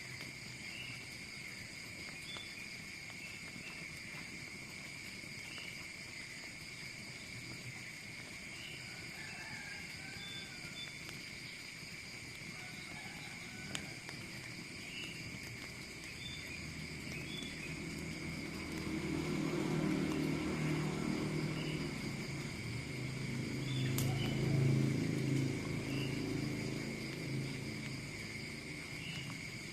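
Steady chorus of insects, crickets or similar, with faint scattered chirps. Past the middle a low-pitched drone rises, swells twice and fades away near the end.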